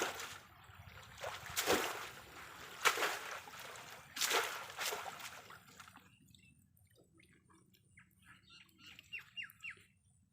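Water splashing in a shallow river, with several loud splashes over the first six seconds. After that it goes quiet, and birds chirp briefly near the end.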